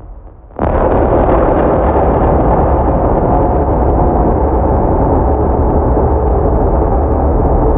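Sound-art soundscape: a low rumble, then about half a second in a sudden loud wash of dense noise comes in and holds steady, with faint held tones inside it.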